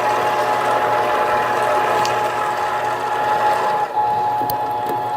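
Mini lathe running with a steady high tone from its drive, while a cut-off tool parts off a length of threaded rod.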